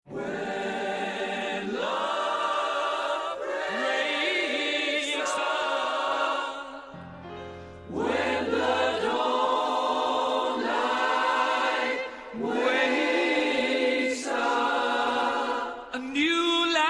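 A choir singing held chords in short phrases, with a brief quieter stretch about seven seconds in.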